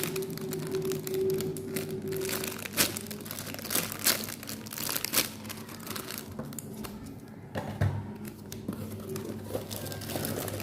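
Parcel packaging crinkling as it is handled and unwrapped, in irregular crackles with a few louder crunches.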